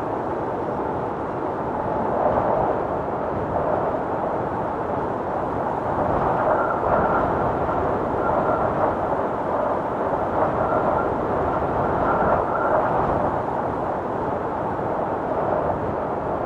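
Wind storm blowing hard and steadily, swelling in strength about six seconds in and easing again near the end, with a faint high whistle through the strongest stretch.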